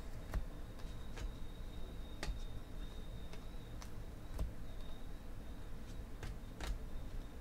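Glossy Panini Prizm football cards being flipped through by hand, one card after another, each making a light, sharp snap. There are about eight snaps, irregularly spaced.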